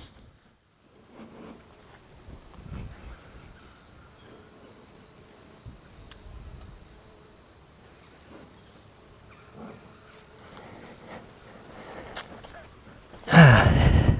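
A chorus of insects trilling steadily at one high pitch in woodland, with a brief loud human vocal sound near the end.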